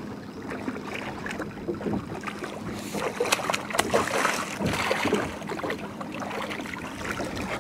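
A hooked blue catfish thrashing and splashing at the water's surface beside the boat as it is reeled in, the splashing heaviest between about three and five seconds in.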